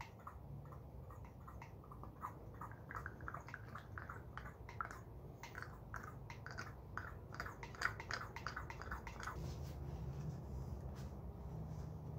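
Hand vacuum pump worked in quick strokes, sucking old brake fluid out of a motorcycle's front brake master cylinder reservoir through clear tubing: a rapid, irregular run of short squishy clicks that stops about nine seconds in.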